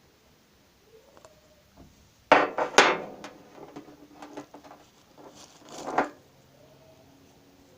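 Hard objects clattering and knocking as they are handled. The loudest burst of knocks comes about two and a half seconds in, with scattered clicks after it and another cluster of knocks near six seconds.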